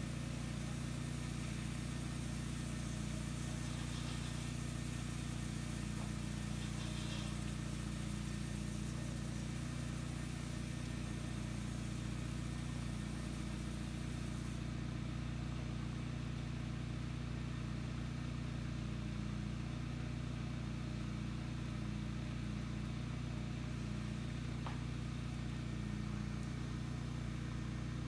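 Sino Star S9 touchless car wash machine running with a steady low mechanical hum from its motor and pump as the gantry works over the car. The fainter high hiss drops away about halfway through.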